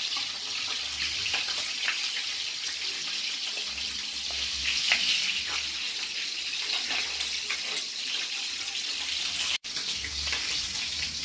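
Small fish (sprat) frying in hot oil: a steady sizzle with scattered crackles.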